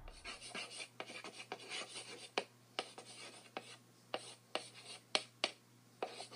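Chalk writing on a blackboard: an uneven run of short scratchy strokes with a few sharp taps.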